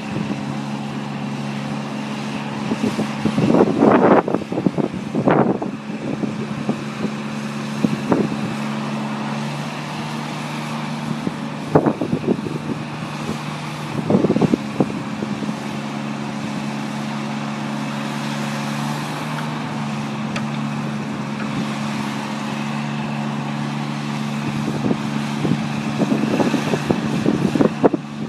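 1994 GMC Topkick's 7.0-litre gasoline engine running at a steady speed while it drives the aerial lift boom's hydraulics as the boom is raised and swung. Short bursts of rattling noise break in several times, loudest about four seconds in.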